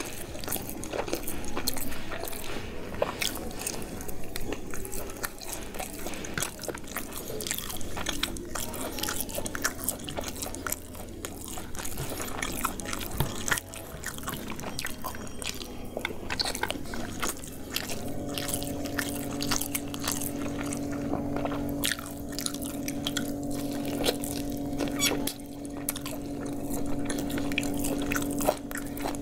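Close-miked chewing of a mouthful of chicken biryani, with many short mouth clicks. A steady low hum comes in about two-thirds of the way through.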